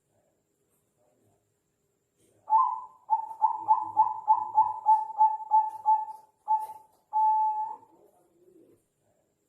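Zebra dove (perkutut bangkok) singing. After a quiet start it gives an opening coo, then a run of about ten quick staccato coos at roughly three a second, then a short note and a longer held coo.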